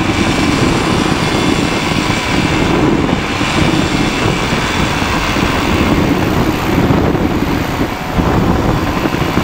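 Flylight PeaBee flexwing microlight trike's engine and propeller running steadily at reduced power after the climb, mixed with wind rushing over the microphone in flight.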